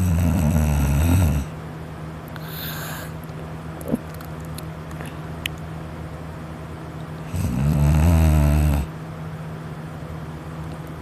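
A person snoring in their sleep: two loud snores about seven seconds apart, each about a second and a half long, one at the start and one about two-thirds of the way through, with a softer breath shortly after the first.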